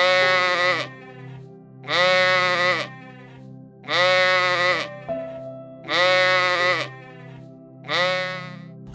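An animal bleating five times, each call just under a second long and about two seconds apart, over steady background music.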